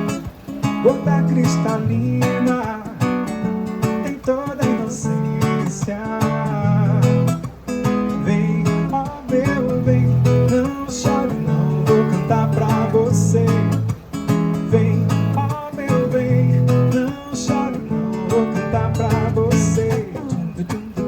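Live acoustic guitar music: strummed and plucked chords over changing bass notes, played steadily.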